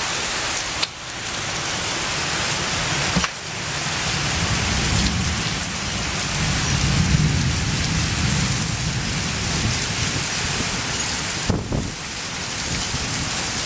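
Heavy rain pouring down in a thunderstorm, a steady hiss, with a low rumble of thunder building from about four seconds in and fading near the end.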